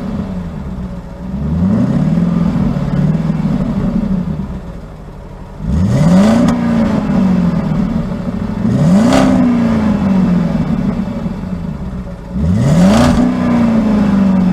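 Car engine revving four times, each rev climbing quickly in pitch and then winding down slowly, the first one smaller. A short hiss comes at the top of each of the last three revs.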